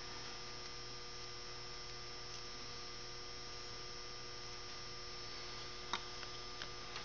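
Steady low electrical hum with a faint hiss, with a few faint short clicks about six seconds in.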